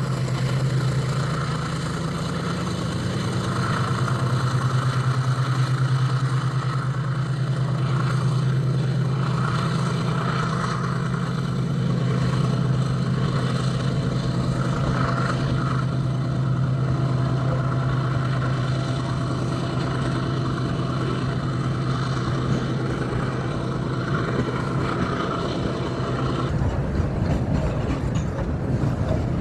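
GE ES43BBi diesel-electric locomotive's V12 diesel engine working hard under load to pull a loaded freight train up a grade, with a steady deep hum. Near the end the engine hum drops out and the rolling rumble of passing freight wagons takes over.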